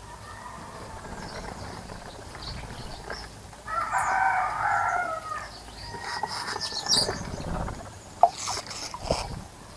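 A rooster crows once, a call of about a second and a half starting near four seconds in, with small birds chirping around it.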